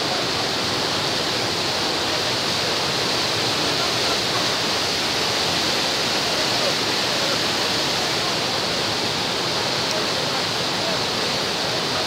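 Nafakhum waterfall, a broad low cascade of river water pouring over rock ledges, rushing loud and steady.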